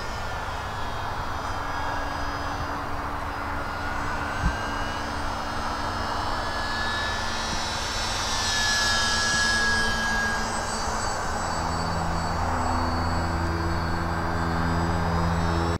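Twin propeller engines of a radio-controlled model airliner running steadily in flight, with a louder rush about halfway through as it passes overhead. A single sharp click about four seconds in.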